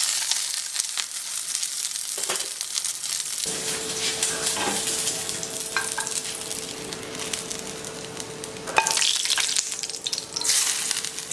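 Chicken pieces sizzling and crackling as they fry in oil in a nonstick pan. A steady hum joins about three and a half seconds in, and the sizzle flares louder twice near the end.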